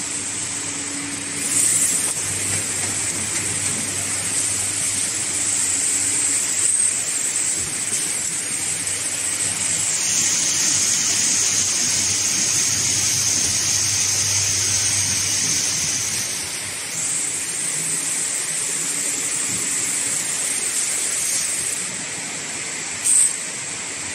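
Spout-pouch liquid rotary packing machine running: a steady mechanical hum under a high, continuous hiss, with a few short, louder hisses, the loudest near the end.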